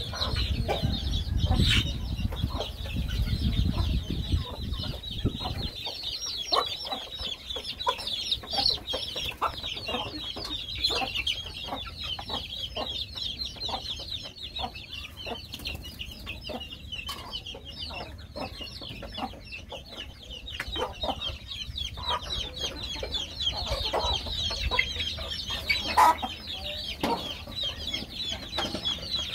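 A flock of young chickens cheeping and clucking without pause, a busy stream of short high calls with louder single clucks here and there. A low rumble underlies the first six seconds.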